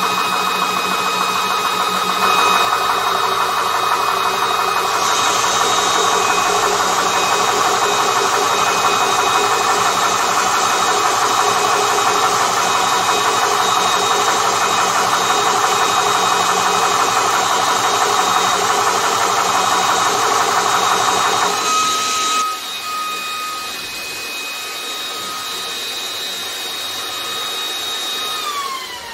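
PortAir PA1500S high-pressure PCP compressor running steadily as it fills a 700cc air bottle toward 300 bar. About three quarters of the way in, the louder pumping noise drops away, leaving a quieter hum with steady tones, which falls in pitch near the end as the motor winds down.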